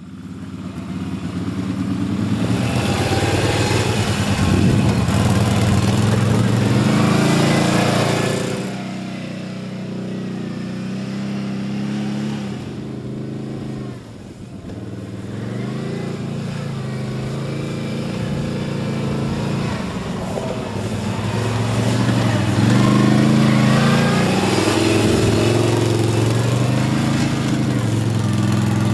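ATV (quad bike) engine running and revving up and down as it is ridden over rough ground. It is loudest in the first eight seconds, eases off, dips briefly about halfway through, and builds again in the last third.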